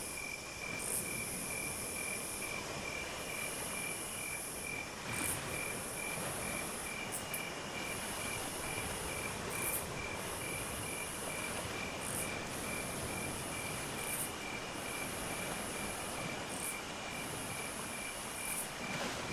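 Night insects calling: a cricket trilling in rapid even pulses, with a higher-pitched insect chorus that comes in spells of a second or two separated by short breaks, over a steady background hiss.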